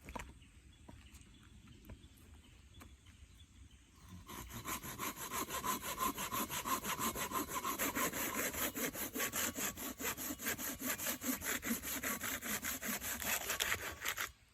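Silky BIGBOY folding hand saw cutting through a piece of wood with quick, even strokes. The sawing starts about four seconds in and stops just before the end.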